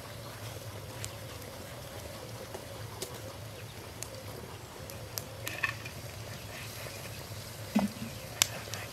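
Wood fire burning in a clay tandoor oven, a steady rushing sound broken by scattered crackles and pops, the two loudest pops near the end.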